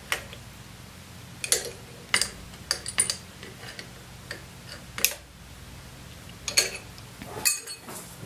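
Metal-on-metal clicks and clinks from an open-end wrench and pliers turning brass pipe fittings on a homemade aspirator vacuum pump: about eight sharp, irregularly spaced ticks, over a faint steady low hum.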